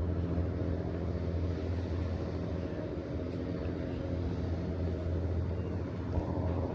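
Steady low mechanical drone, a constant hum with an even stack of tones that does not change.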